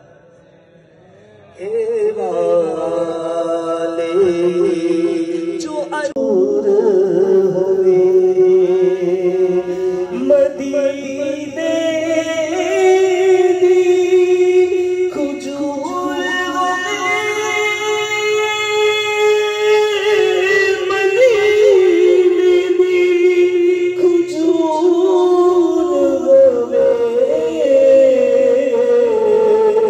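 A solo male voice singing a naat into a microphone, in long, held, ornamented notes that waver in pitch. The singing comes in about a second and a half in, after a brief quiet.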